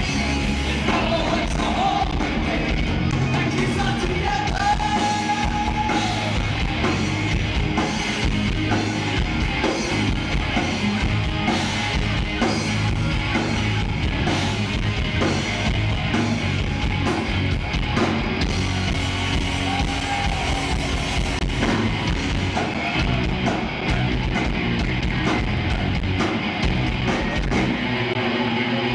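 A live rock band playing loudly through a PA, with a singer over distorted electric guitars, bass and drums.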